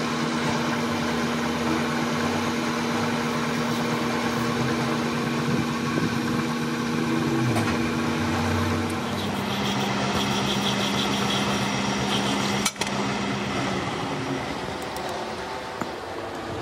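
Metal lathe running with a gunmetal bush bearing spinning in its chuck: a steady machine hum that drops slightly in pitch about nine seconds in, with a brief dropout near thirteen seconds.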